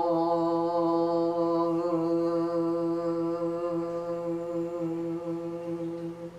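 One voice holding a long, steady chanted "gong" on a single pitch: the qigong healing sound for the digestive system. It slowly fades toward the end.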